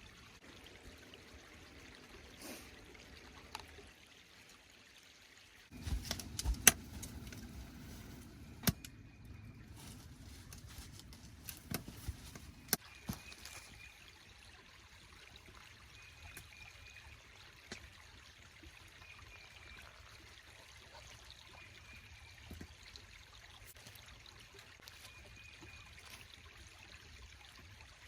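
Liquid being poured and trickling while coffee is made, with a cluster of sharp clicks and knocks from handling the gear between about 6 and 13 seconds in.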